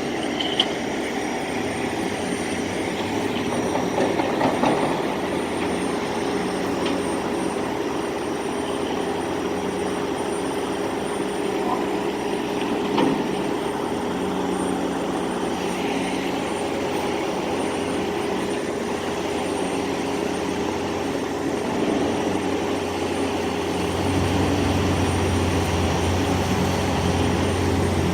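Construction machinery engine running steadily. About three-quarters of the way through, a deeper drone comes in and grows louder.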